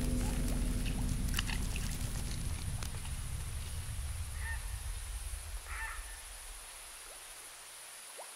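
A low rumble fading out gradually under a steady high hiss. About halfway through, a waterfowl gives two short calls just over a second apart.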